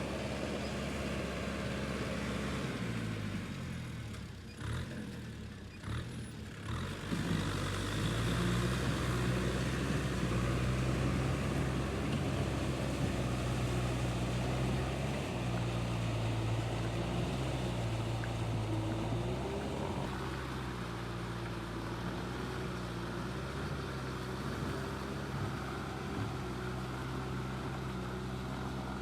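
A motor engine running. Its pitch slides down and it dips briefly, with a few knocks, about three to seven seconds in, then it runs steadily.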